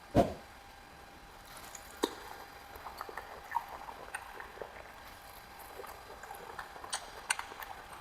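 Close-miked eating: soft, wet mouth clicks and small chewing pops, scattered and faint, with one soft thump just after the start.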